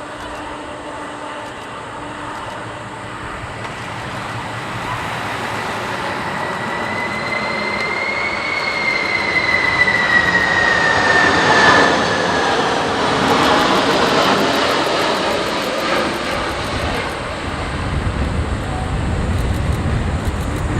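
Boeing 747 freighter's jet engines on the landing approach, a rushing roar that grows louder as the aircraft passes, with a fan whine that rises in pitch and then falls away.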